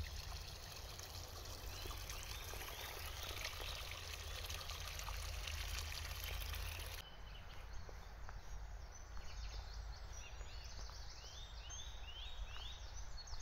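A small stream trickling through a muddy ditch, with short runs of quick descending bird notes a few seconds in. About halfway through the water sound drops away to quieter open-air background, and the same kind of bird notes come again near the end.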